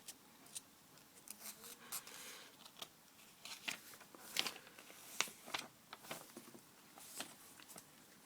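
Pages of a paper setup booklet being turned and handled, giving faint, irregular papery flicks and rustles.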